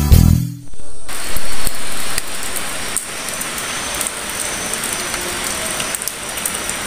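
Guitar music cuts off, then a steady hiss with scattered faint clicks and a thin high whine, briefly louder about a second and a half in.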